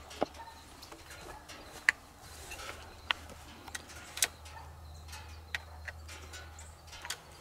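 A few sharp, scattered clicks and ticks at irregular spacing as an AirForce air rifle is handled and readied, over a faint low hum.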